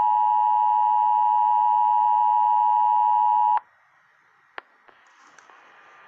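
Emergency Alert System attention signal, the steady two-tone alarm, announcing a Tropical Storm Warning; it cuts off sharply about three and a half seconds in, leaving a hush broken by a couple of faint clicks.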